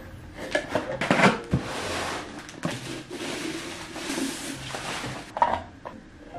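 Bubble wrap crinkling and rustling as it is pulled off a globe lamp shade, after a few clicks and knocks of the packaging being handled.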